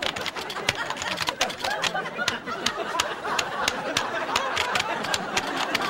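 A crowd of many people chattering and laughing at once, with frequent sharp clicks scattered irregularly through it.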